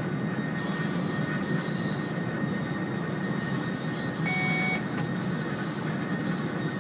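Steady running noise inside the cab of a Siemens EuroSprinter EU44 electric locomotive at speed, with a faint steady whine. About four seconds in a short electronic beep sounds in the cab, followed by a click.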